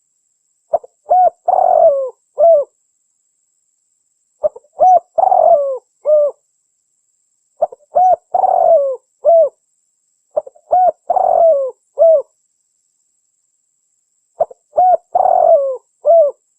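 Spotted dove cooing: five repeated phrases about three to four seconds apart, each a couple of short coos, one longer burry coo and a final short coo.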